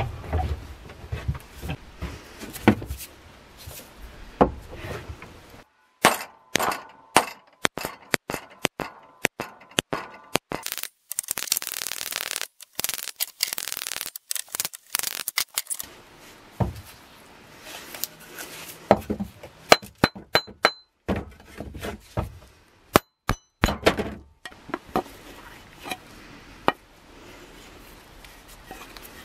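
Hammer blows on metal, a long series of sharp clinks and knocks, as the old wooden handle is driven out of an axe head. A few seconds of dense noise come midway.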